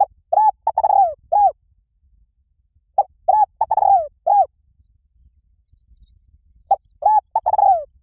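Spotted dove cooing: a phrase of about four clear coos, one of them longer and falling, repeated three times about every three seconds.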